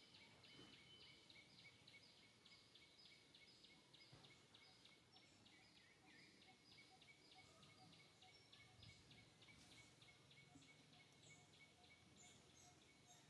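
Faint, high-pitched insect chirping, pulsing steadily about three times a second.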